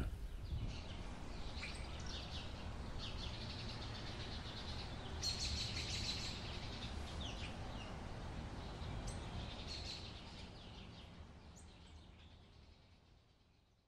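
Birds chirping over a steady low outdoor background noise, fading out over the last few seconds.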